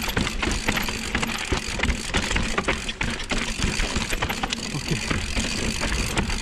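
Giant XTC hardtail mountain bike clattering down a rough dirt trail, with many irregular knocks and rattles over tyre noise and a low wind rumble on the microphone. The rear hub ticks as the rider coasts without pedalling.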